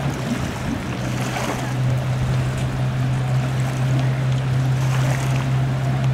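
Boat engine idling with a steady low hum, over the wash of water and wind.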